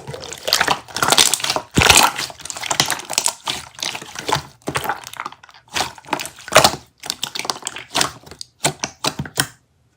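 Purple grape jelly being squished and crushed, a rapid irregular run of crackles and snaps that is densest at first, then breaks into separate clicks and stops just before the end.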